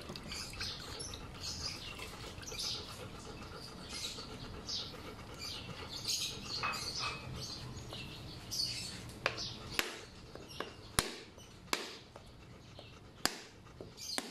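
Small birds chirping in the background. In the last few seconds there are several sharp knocks from a knife working the coconut.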